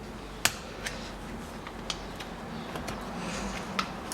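A few short, sharp clicks, the loudest about half a second in, from a retaining clip being pried off a gear shift lever support.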